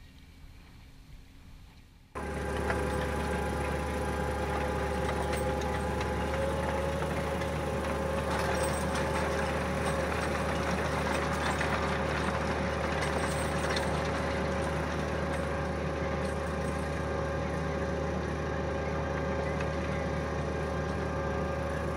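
Large tractor diesel engine running steadily, cutting in abruptly about two seconds in after a faint start.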